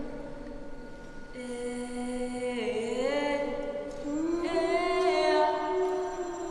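A voice chanting long, held notes with no words, sliding slowly upward from one pitch to the next, with a higher note held near the end.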